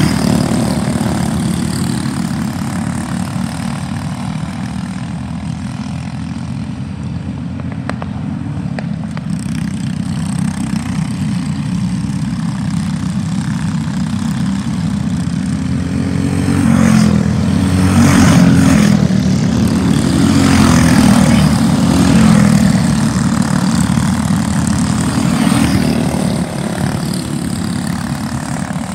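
A pack of racing karts with Briggs & Stratton LO206 four-stroke single-cylinder engines running on track. The engines grow louder a little past halfway as the karts pass close by, then fade again.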